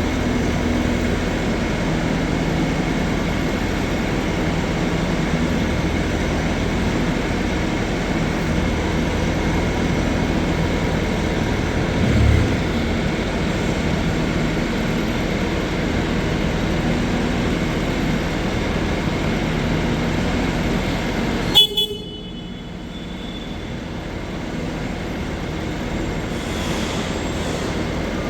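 Bobcat S530 skid steer's diesel engine running steadily. About three-quarters of the way through it is shut off with a sharp click, and a fainter steady hum is left.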